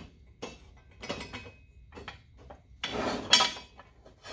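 Steel bolts and plates of a smoker door band roller clinking and knocking as bolts are fitted and started by hand, with a louder metal clank about three seconds in.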